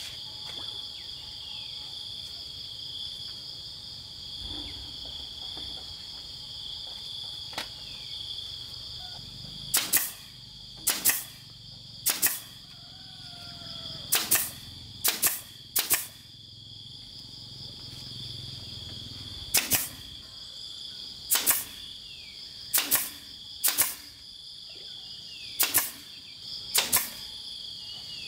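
Pneumatic nail gun firing nails into bamboo: about a dozen sharp shots, several in quick pairs, starting about ten seconds in.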